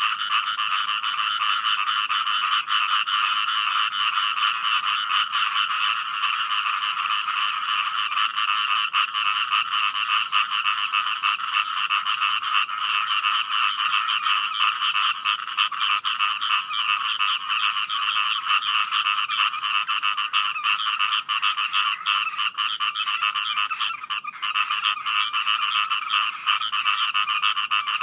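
Dense chorus of many frogs calling at once, a continuous rapid pulsing trill concentrated in two pitch bands, which briefly thins near the end.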